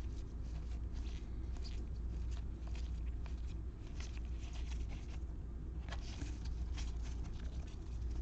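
Baseball trading cards handled and flipped through by hand: a run of light clicks and rustles of card stock sliding against card, over a steady low hum.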